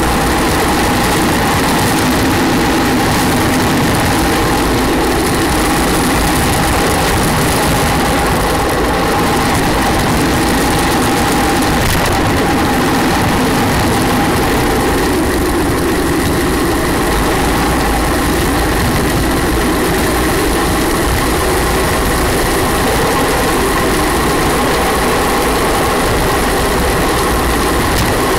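Steady rumble of a gravity racer's wheels rolling fast on asphalt, with a constant hum and vibration.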